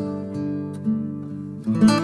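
Background music: an acoustic guitar plucked and strummed, with new notes struck about a second in and again near the end.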